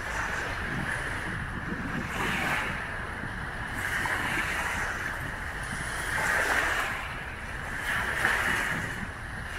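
Small wind-driven waves breaking and washing up on a sandy shore, with the wash surging about every two seconds.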